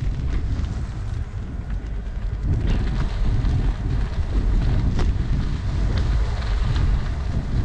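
Wind buffeting a GoPro action camera's microphone during a bicycle ride, a steady low rumble mixed with tyre noise from the path, with a few short sharp ticks.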